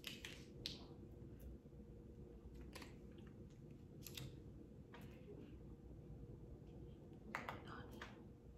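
Near silence with faint scattered clicks and taps from hands working small candies and icing tubes on gingerbread houses, a few at a time with a small cluster near the end, over a faint steady hum.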